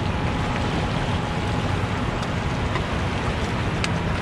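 Steady rushing of churning water below a dam, with a faint click near the end.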